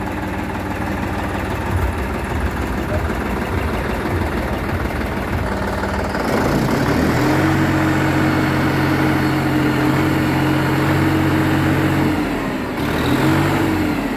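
John Deere 5405 tractor's three-cylinder diesel engine idling, then revved up about six seconds in and held at a higher, steady speed for about five seconds before dropping back, followed by two short revs near the end.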